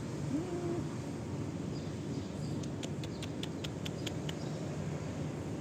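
A cat's brief, low mew near the start, over a steady background hum. In the middle comes a quick run of about ten sharp clicks, roughly six a second.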